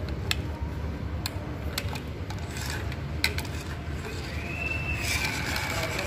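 Plastic toy excavator and toy truck being handled: a few sharp plastic clicks and knocks, then from about five seconds a rolling rasp with a high wavering whine as the toy truck is pushed along a concrete floor.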